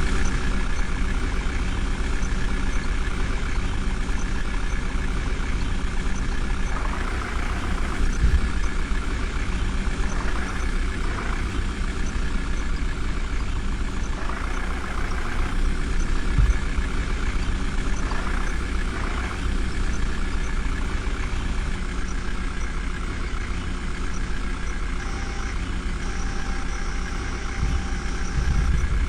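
Diesel engine of a JCB 3DX backhoe loader running steadily while it works, its sound swelling briefly about four times.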